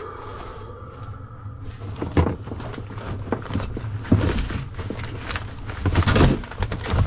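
Coiled rubber extension cords and cables being shifted and pulled about in a trailer's storage compartment: rustling with several knocks against the compartment, the loudest about four and six seconds in, over a low steady hum.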